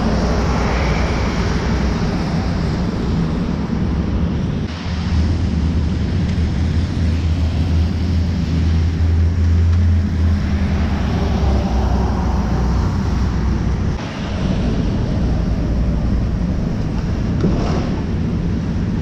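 City street noise: a steady low rumble of traffic mixed with wind buffeting the camera microphone.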